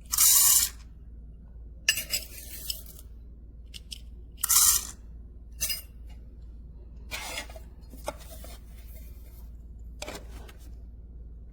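Kitchen handling sounds: short rustling bursts and light clinks and knocks of coffee gear and dishes being handled. Two of the rustles are louder, one at the start and one about four and a half seconds in. The grinder's motor is not running.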